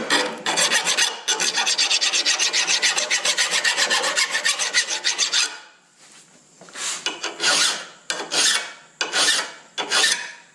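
Hand file scraping along the edge of a steel finish-mower blade, taking off the soft material left by grinding to finish the sharpening. It starts as a fast run of short strokes, then after a brief pause about halfway through becomes slower, separate strokes, a little more than one a second.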